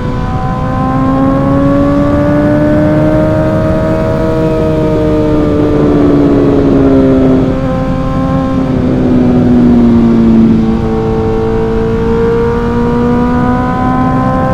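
Suzuki GSX-R1000 inline-four engine running at speed on the move, its note climbing gently, easing down and climbing again, over a steady rush of wind noise.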